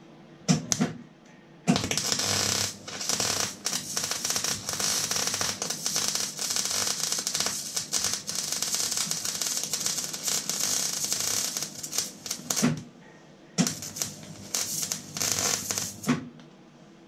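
Electric arc welding on a steel hopper and frame: a steady crackle as the arc burns. Two brief strikes come first, then one long weld of about eleven seconds, a short pause, and a second shorter weld of about two and a half seconds.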